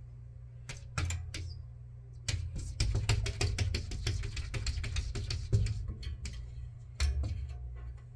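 A cat pawing and scratching at a glass storm door: a few single taps, then a fast run of claw taps and scratches on the glass in the middle, and one more knock near the end.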